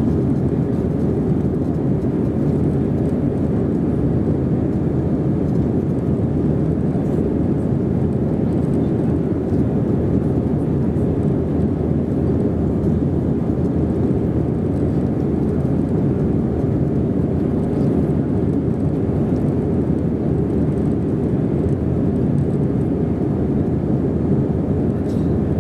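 Steady cabin roar of an Airbus A320-232 climbing out after takeoff, heard from a window seat over the wing. The IAE V2500 engines and the rush of air past the fuselage make a low, even drone.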